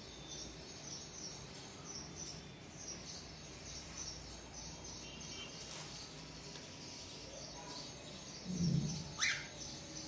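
Pet cockatiels chirping faintly and often. Near the end comes a dull thump, then one quick, loud chirp that falls sharply in pitch.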